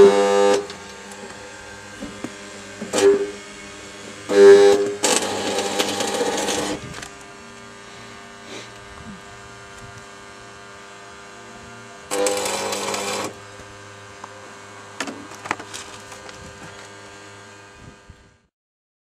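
Electric welder arcing in two bursts, one about two seconds long and a later one just over a second, with a few short sharp sounds between, over a steady background hum.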